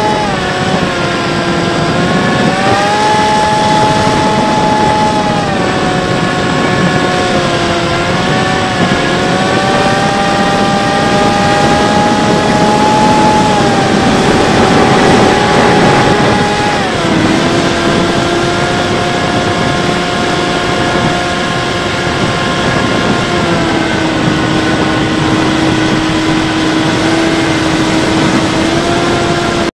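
Electric motor and propeller of a Bixler 3 RC plane whining over wind rush on its onboard camera, its pitch stepping up and down with the throttle. It drops sharply a little past halfway and then holds at a lower pitch.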